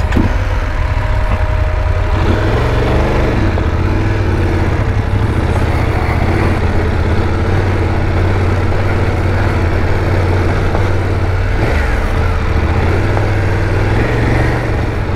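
BMW F850GS parallel-twin engine idling in first gear, then revving up as the bike pulls away about two seconds in and running steadily at low revs.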